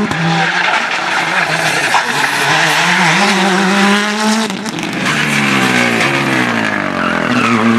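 Hyundai i20 R5 rally cars' turbocharged 1.6-litre four-cylinder engines at speed on a stage: the engine note climbs through the first half, then after a break a second car's engine note falls steadily as it passes.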